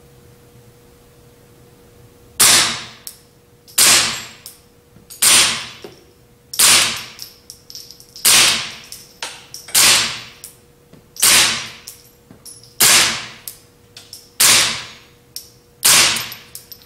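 Ten suppressed .22 LR shots from a Ruger 10/22 rifle fitted with the original aluminum SilencerCo 22Sparrow suppressor, fired dry with CCI standard velocity ammunition. The shots begin about two seconds in and come roughly one every one and a half seconds, each a sharp crack with a short decay.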